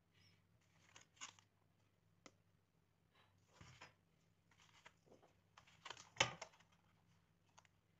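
Quiet handling noises of a steel ruler being laid down and shifted on a cardboard sheet: short scrapes and rustles with light ticks, the loudest a sharp tap about six seconds in. A faint steady low hum lies underneath.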